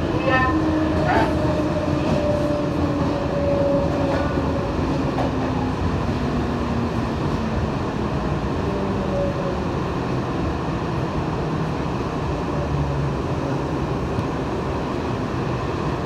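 Trensurb electric commuter train heard from inside the car: a steady rumble of wheels on the track, with the traction motors' whine slowly falling in pitch as the train slows.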